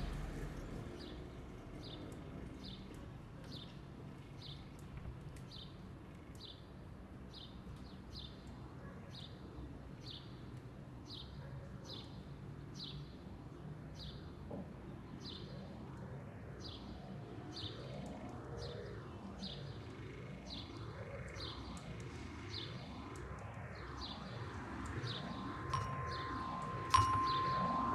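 Faint high chirps repeating about every 0.7 s, joined about halfway through by soft rising-and-falling sweeping tones. Near the end a servo-swung wooden ball mallet strikes a toy glockenspiel bar twice, the second strike loud and ringing on as one clear note.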